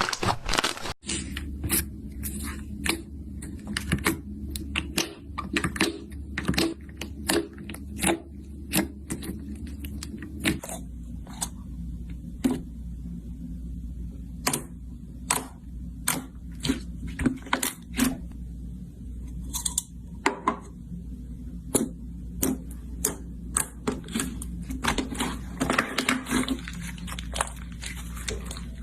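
Slime being squished and poked by hand: irregular sharp pops and clicks, often several a second, over a low steady hum.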